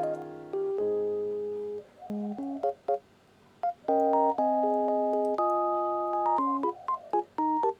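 Background music: a light keyboard tune of held chords alternating with short, bouncy staccato notes.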